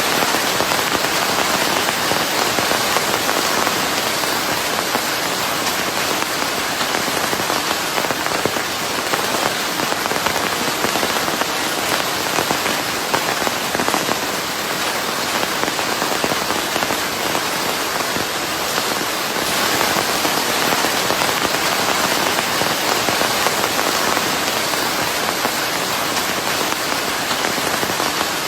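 Steady rain: dense, fine drop hits in an even, continuous hiss, mixed with white noise for sleep.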